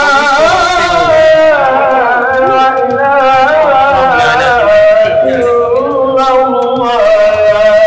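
A voice singing in a Middle Eastern style, holding long notes that waver and bend in pitch.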